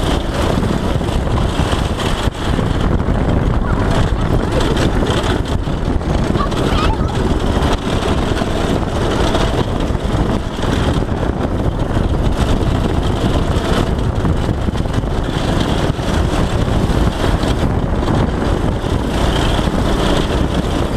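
Black Cat go-kart's small engine running steadily as the kart drives along a bumpy dirt track, heard close up from the kart itself.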